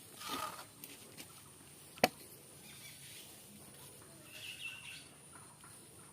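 A short rustle, then a single sharp knock about two seconds in, over a faint steady high hiss, with a few faint chirps near the end.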